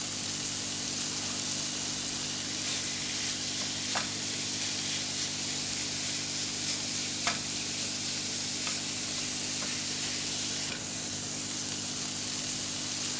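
Ground beef frying in hot olive oil with onions and garlic in a pan, a steady sizzle as it is stirred, with a few light clicks of the stirring utensil against the pan.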